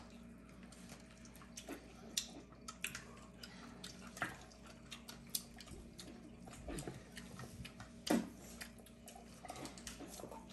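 Eating sounds: scattered soft clicks, smacks and small taps of people eating fried chicken, the loudest a little past two seconds, at about four seconds and at about eight seconds, over a faint steady hum.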